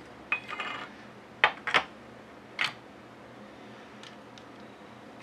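Brass cartridge cases and bullets clinking as they are handled at a reloading bench: a short rattle near the start, then a few sharp clicks as a case is set into the shell holder of a single-stage reloading press.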